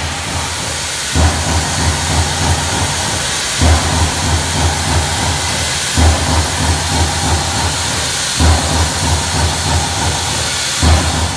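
Finn Power SG 5 CNC punch press running with a steady hiss. Runs of low punching thumps repeat about every two and a half seconds, each run starting with a heavier hit.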